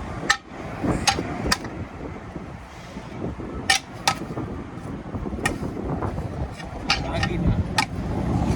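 Hand tools knocking and clicking against a tire and wheel rim during a manual tire repair: about eight sharp metallic knocks at irregular intervals, some briefly ringing, over low wind rumble.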